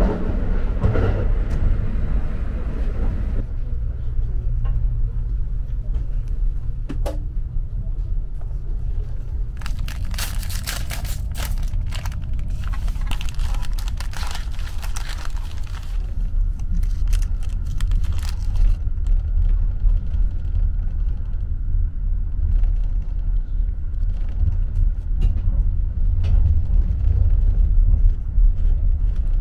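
Steady low rumble of the Kintetsu Hinotori express train running. From about a third of the way in, a foil-lined snack wrapper is crinkled and torn open, a run of sharp crackles lasting several seconds.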